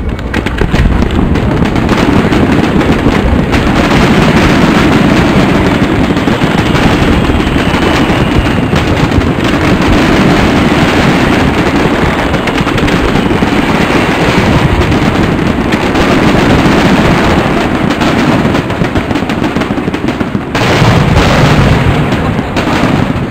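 Fireworks display: a dense, unbroken barrage of shell bursts and crackle. It eases briefly near the end before a last loud volley.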